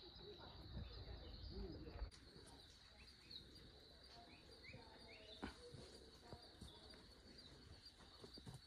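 Faint rainforest ambience: scattered short bird chirps over a steady high-pitched tone, with a low rumble during the first two seconds that stops abruptly.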